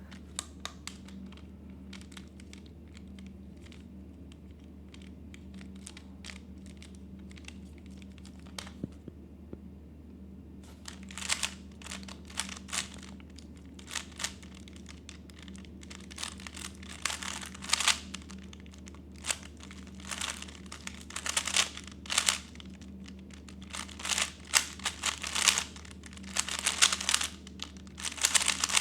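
3x3 Rubik's speed cube being turned fast in a timed solve: rapid flurries of plastic clicks and rattles that start about a third of the way in, after a quieter stretch of only occasional faint clicks.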